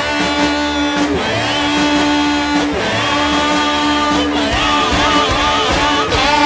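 Rock theme music with guitar: a steady held note through the first few seconds, then a wavering melody line about halfway through.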